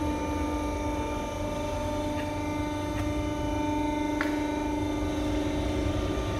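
Steady machine hum with a held low-mid tone and a fainter higher one over a low rumble, with a few faint clicks.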